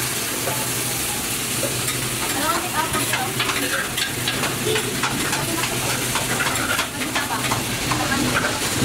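Meat frying on a flat-top griddle, sizzling steadily, with frequent clicks and scrapes of a metal spatula and utensils. A steady low hum runs underneath.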